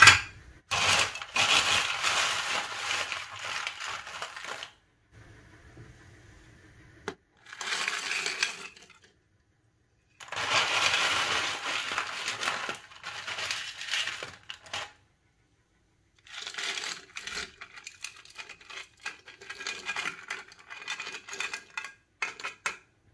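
Crushed ice being spooned into a glass, rattling and clinking onto the ice already in it, in four bursts with short pauses between.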